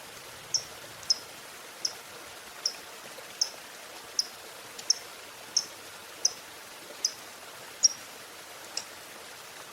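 Lovebird giving about a dozen short, sharp, high chirps, one roughly every three-quarters of a second, over a steady hiss.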